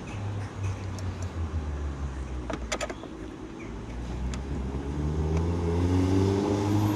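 A motor vehicle's engine running, then rising in pitch and growing louder from about four and a half seconds in as it speeds up. A few light clicks of plastic being handled come around the middle.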